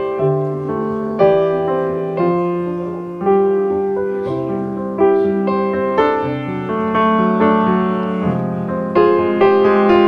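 Background piano music: gentle notes and chords struck about once a second, each fading before the next.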